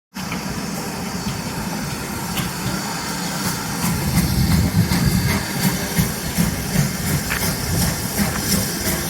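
Heritage railway locomotive running at a station, with hissing and light clicks. It starts abruptly and grows louder about four seconds in.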